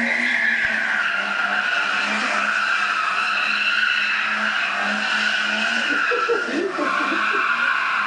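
BMW E30 325is doing donuts, its rear tyres squealing continuously on pavement over its straight-six engine held at steady revs. The squeal drops a little in pitch about two-thirds of the way through.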